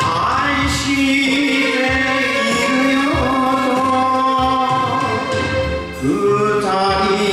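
An enka song: a solo voice singing long held notes over band backing music.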